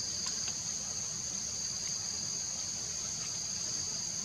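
Steady, shrill drone of insects in forest undergrowth, two constant high tones that hold without a break.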